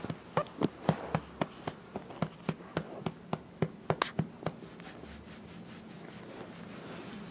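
A hand patting a baby's back to bring up a burp, about three to four pats a second, stopping about four and a half seconds in.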